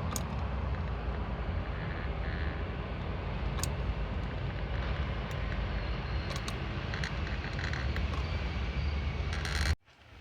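Steady low rumble of road traffic, with a few light clicks and taps over it; the sound cuts off suddenly near the end.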